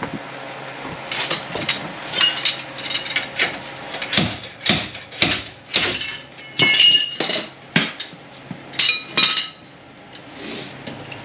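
Slide hammer being slammed repeatedly against a rust-seized front wheel hub bearing assembly to pull it out: a dozen or more sharp metallic clanks with a brief ring, at uneven spacing, stopping near the end.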